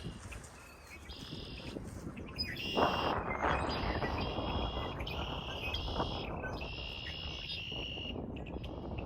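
A bird calling over and over in short, high, even-pitched phrases of about half a second each, over the rush of wind. The wind picks up about three seconds in.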